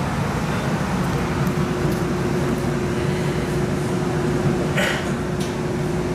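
Inside a Siemens S70 streetcar pulling away from a stop: a steady low rumble and hum of the car under way. A steady tone comes in about a second in, and a brief high squeal sounds about five seconds in.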